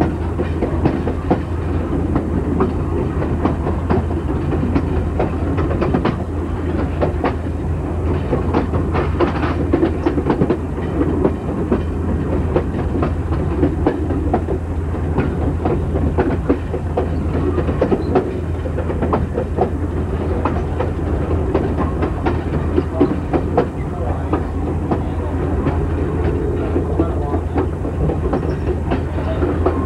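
Passenger car wheels rolling over jointed track: a steady rumble with many irregular clicks and knocks as the wheels cross the rail joints.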